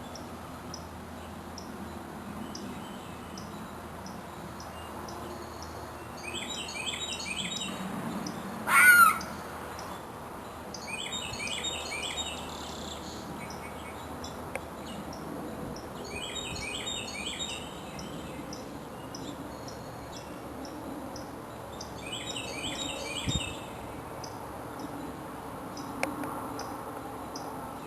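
Woodland birds: a songbird repeats a short phrase of quick, high, descending chirps about every five seconds, over a steady background hiss. A single loud, harsh call breaks in about nine seconds in.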